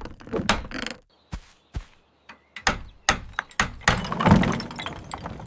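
A hammer knocking fast on wooden planks: a string of separate sharp knocks, running into a louder, denser clatter about four seconds in.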